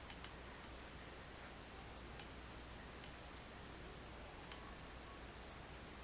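Quiet room hiss with a few faint, scattered clicks, about five in all, the clearest around two and four and a half seconds in.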